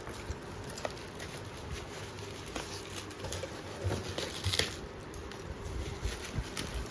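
Light clicks, taps and rustles from handling a fountain pen's box and packaging, over a steady background hiss, with a brief run of louder clicks about four seconds in.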